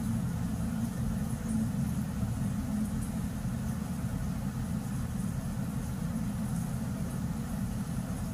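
Steady low mechanical hum that does not change, with a few faint steady tones in it.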